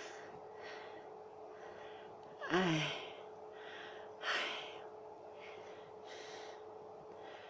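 A woman breathing audibly through an open mouth, roughly one breath a second, with a loud voiced gasp falling in pitch about two and a half seconds in and another loud breath a couple of seconds later. A faint steady hum lies underneath.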